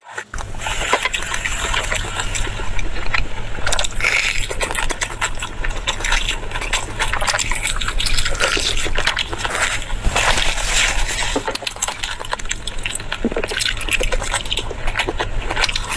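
Close-miked eating sounds: wet chewing and mouth noises with many crisp crunches and clicks, over a steady low hum.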